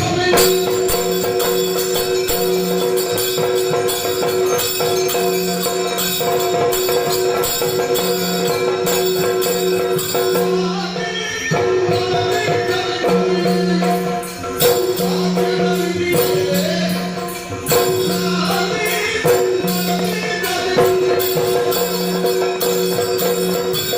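Yakshagana ensemble music: a steady held drone under fast drum strokes and small hand cymbals, with the drone briefly dropping out about halfway through.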